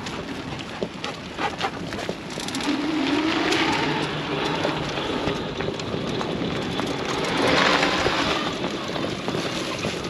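Outrider Coyote electric ATV driving over rough ground. The motor's whine rises in pitch about two and a half seconds in, over the crunch and knocks of the tyres, which swell twice.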